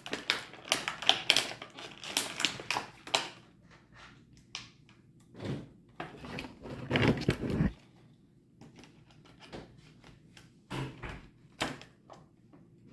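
Plastic packaging and small plastic toy pieces being handled and opened: irregular crinkling and clicking, busiest in the first three seconds, then sparser with a couple of short bursts.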